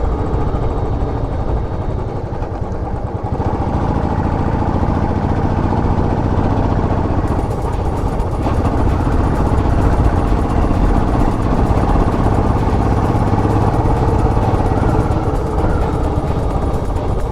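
Royal Enfield Classic 500's single-cylinder engine running steadily as the motorcycle is ridden.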